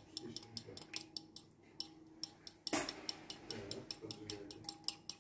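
A utensil whisking an egg, yogurt and milk mixture in a bowl: quick, even clinks of metal on the bowl, about five a second, with one louder knock a little under three seconds in.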